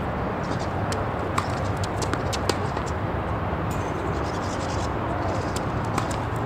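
Several sharp, irregularly spaced knocks of a tennis ball, over steady background noise with a low hum.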